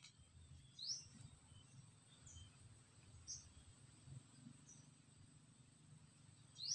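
Faint forest ambience: short high bird chirps, a quick rising chirp about a second in and another at the end, with a few briefer ones between, over a steady thin high insect whine.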